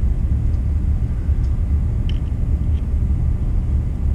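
A steady low rumble of background noise, with a few faint, light clicks about two and three seconds in as hands work inside the printer's head area.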